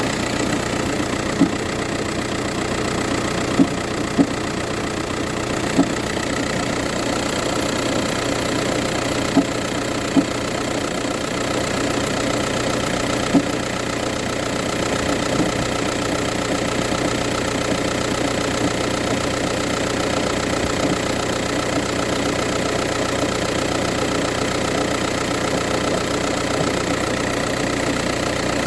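VW Touran 1.9 TDI four-cylinder diesel idling steadily after a cold start, with several sharp knocks at irregular intervals during the first half. This is a knock that the owner hears only on cold mornings and not when driving.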